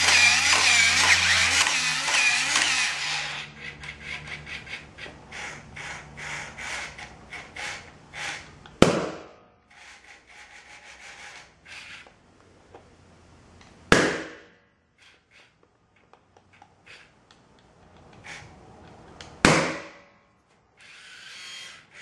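A toy walking robot's gear motors whirring loudly, then clicking rapidly as it walks. Three balloons burst with sharp loud pops, about nine, fourteen and nineteen seconds in, as a laser burns through them. A short whir of the motors again near the end.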